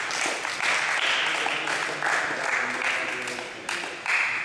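A group of people applauding, a dense clapping that goes on throughout.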